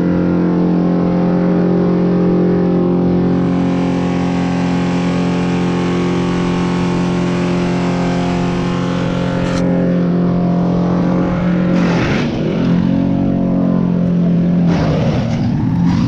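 An engine running steadily at one even speed, with short bursts of rustling or scraping noise about twelve seconds in and near the end.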